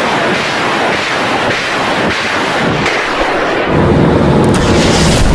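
Truck-mounted multiple rocket launcher firing a salvo: a loud, continuous roar of rockets launching in rapid succession, with crackling through it. About three and a half seconds in, a heavier low rumble builds underneath.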